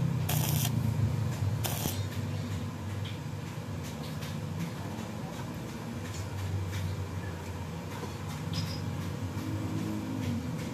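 Stick-welding arc on a crankshaft end, crackling in two short bursts within the first two seconds as weld is laid on to rebuild the damaged thread. After that only a steady low hum with scattered small clicks remains.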